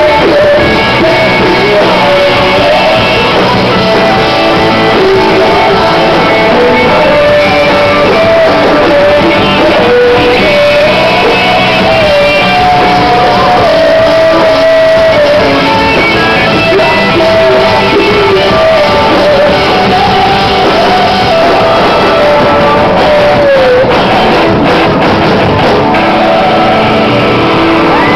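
Live rock band playing loud: electric guitars and drums under a male lead vocal sung hard, close to shouting, in a large room.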